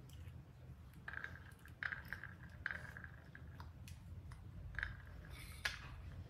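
Faint handling sounds of a citrus fruit being peeled by hand: a few light clicks and taps as seeds are dropped into a plastic bowl, with several short faint squeaks.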